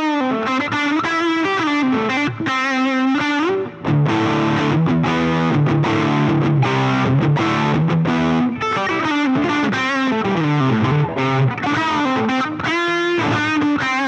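Distorted electric guitar lead played through a Hotone Ampero II Stage multi-effects unit on its Messe IV Lead amp model, a model of a Mesa/Boogie Mark IV lead channel. Held notes with wide vibrato and bends alternate with quicker runs of notes.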